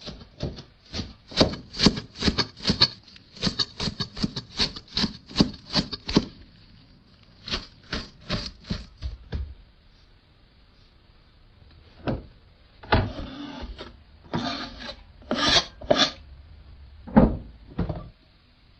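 Rapid, even scraping or rubbing strokes, about three a second, stopping about halfway through; after a short pause come a few longer, rougher scrapes and single strokes.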